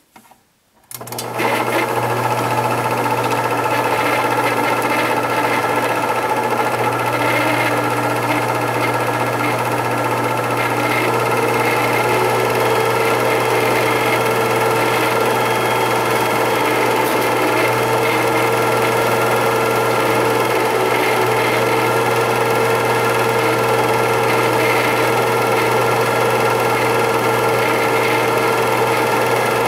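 8mm film projector running, a steady mechanical whir with the film drive turning over. It starts about a second in and holds level after that.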